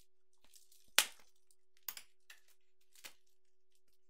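Knife cutting open a roll of white foam packing wrap: a few sharp cracks and crackles, the loudest about a second in, with smaller ones near two and three seconds in.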